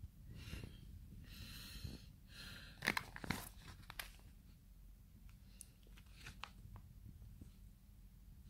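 Plastic packaging crinkling and rustling as it is handled, with a few sharp clicks about three seconds in.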